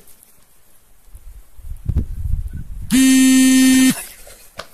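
A loud, steady horn-like buzz on one pitch, lasting about a second, starting about three seconds in, with a low rumble shortly before it.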